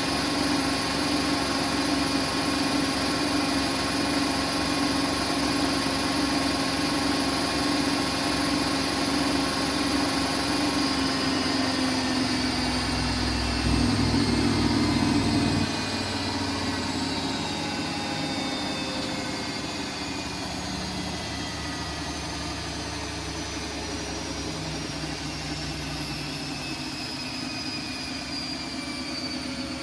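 Siemens Siwamat iQ 716 washing machine running with a steady hum and whine. About halfway through, a louder low rumble lasts a few seconds and then drops away. After that the whine falls slowly and steadily in pitch as the drum spins down.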